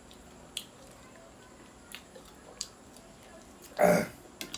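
A person eating noodle soup: a few faint clicks and mouth sounds, then a short, loud vocal sound near the end.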